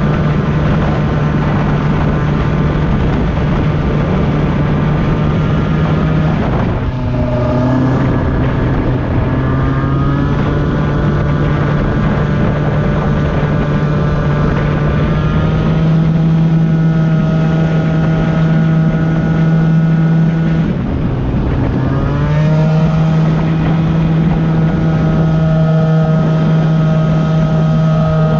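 Stretched Yamaha BWS scooter's two-stroke Minarelli engine running under way at a steady pitch, with the throttle eased off twice and the revs climbing back up each time.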